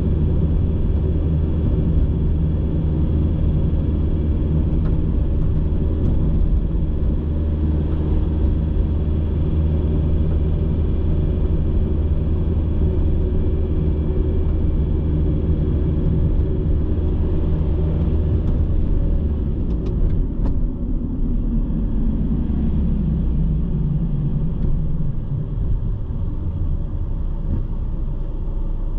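Steady engine and tyre rumble of a car driving along a city road. About two-thirds of the way through, the rumble eases off and falls in pitch as the car slows for a red light, with a few faint clicks.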